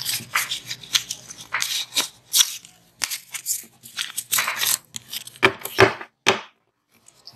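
A foil Pokémon booster pack being torn open and crinkled by hand: a quick run of irregular ripping and crinkling sounds that stops shortly before the end.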